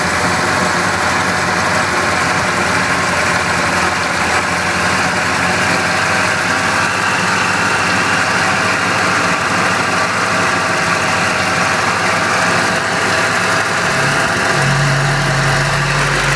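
1974 BMW 2002's M10 four-cylinder engine running steadily at a fast idle after a cold start. About fourteen seconds in, a deeper low note comes up as the microphone moves close to the valve cover.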